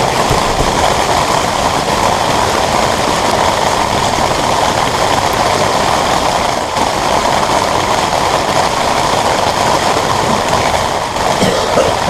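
Heavy rain, with hail in it, falling on a metal shelter roof: a loud, steady rush with no let-up.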